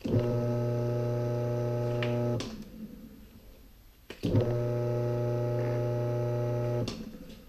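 Sump pump's electric motor switched on twice, each time starting with a click and then running with a steady low hum for about two and a half seconds before cutting off.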